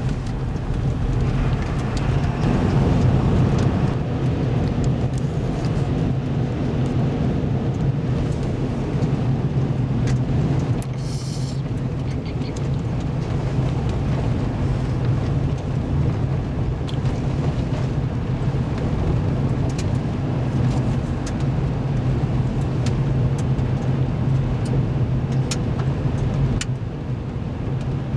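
Car driving on a gravel road, heard from inside the cabin: a steady drone of engine and tyres with a low hum, and scattered faint ticks.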